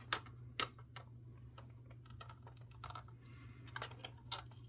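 Scattered light clicks and scratches of a rubber foot being picked and peeled off the plastic underside of a laptop docking station, over a faint steady low hum.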